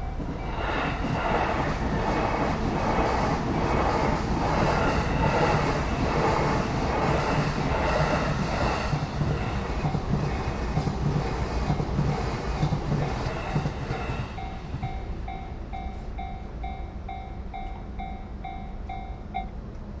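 Japanese level-crossing warning bell ringing in a steady, rapid, repeating ding while a train passes, its wheels clattering rhythmically over the rail joints. The train noise dies away about three quarters of the way through, and the bell stops just before the end.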